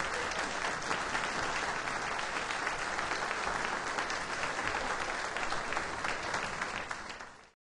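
Concert hall audience applauding: dense, steady clapping that tapers slightly near the end and then cuts off suddenly.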